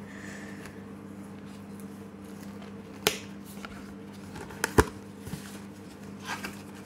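Hands handling a cardboard card sleeve and booster pack: faint rustling and sliding, with a sharp click about three seconds in and two more just before five seconds, over a steady low hum.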